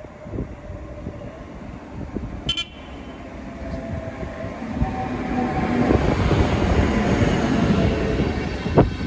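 A Hector Rail locomotive hauling passenger coaches approaches and passes close by. Its rumble and wheel noise build from about three seconds in and are loudest as the locomotive goes past, with a sharp knock near the end.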